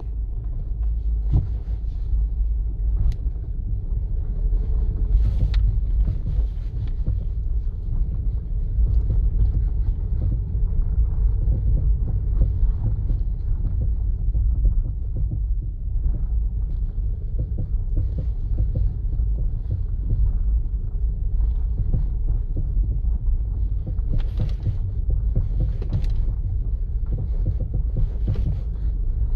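Steady low road rumble of a 2006 Toyota Corolla E120 on the move, with irregular short knocks scattered throughout: the knocking from a fault in the front suspension.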